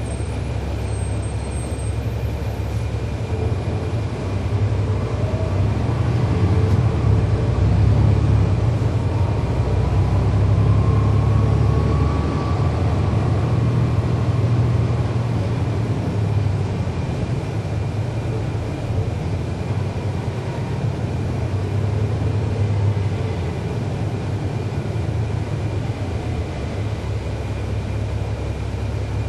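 The Cummins ISL9 diesel engine of a 2011 NABI 40-SFW transit bus running as the bus travels. It grows louder from about four seconds in and eases back after about sixteen seconds, with a faint rising whine around ten seconds in.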